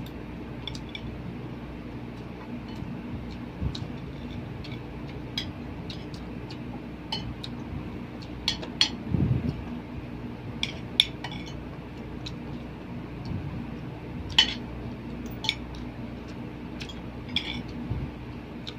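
Metal spoon and fork clinking against plates and bowls while eating, in scattered sharp clinks with a dull thump about nine seconds in, over a steady low hum.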